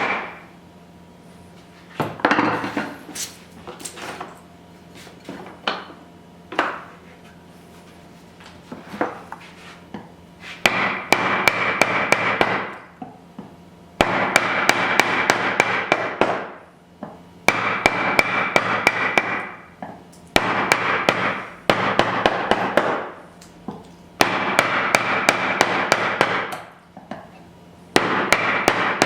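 Wood chisel being struck repeatedly to chop out the waste of a lap joint. Scattered knocks come first, then runs of rapid strikes, about three a second, in bursts of two to three seconds.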